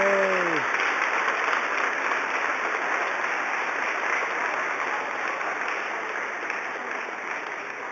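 Audience applauding, loudest at the start and slowly dying away. A single voice calls out briefly right at the start, its pitch falling.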